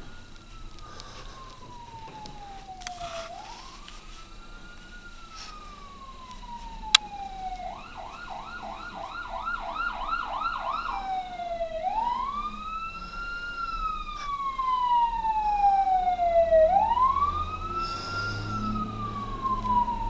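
Fire truck siren in wail mode, each note rising quickly and then sliding slowly down every few seconds. It switches briefly to a fast yelp about a third of the way in, then returns to the wail and grows steadily louder as the truck approaches. A single sharp click sounds shortly before the yelp, and a low rumble joins near the end.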